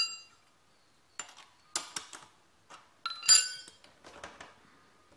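Steel spanners clinking and rattling against each other and the floor as hand tools are picked up and put down. One loud ringing clang comes about three seconds in, with lighter clicks and knocks scattered around it.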